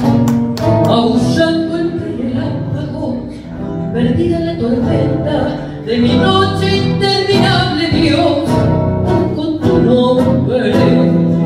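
A woman sings a tango into a microphone, accompanied by an acoustic guitar. Her voice grows fuller and louder about halfway through.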